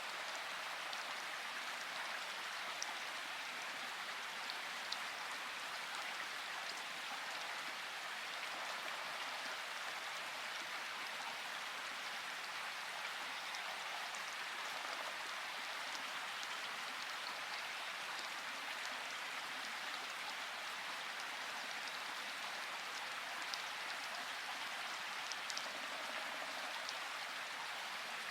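Steady rain falling, a dense even hiss with a few faint sharper drop ticks.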